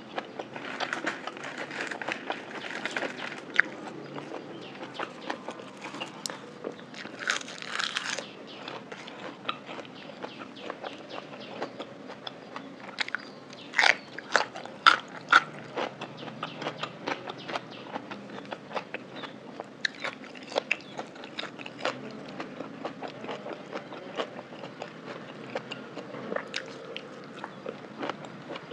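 Close-miked eating sounds of a spicy Thai lime salad with raw shrimp: steady chewing with many small clicks and a cluster of louder crunchy bites about halfway through.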